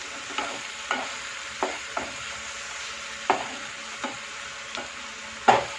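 Vegetables sizzling in a non-stick frying pan as a wooden spatula stirs them, with irregular scrapes and knocks of the spatula against the pan, the loudest near the end.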